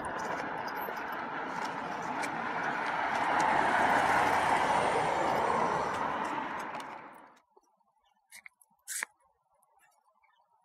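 A road vehicle passing, swelling to its loudest about four seconds in, with light jingling clicks from a cat's harness and lead clip. The sound cuts off sharply about seven seconds in, leaving near silence with a couple of faint clicks.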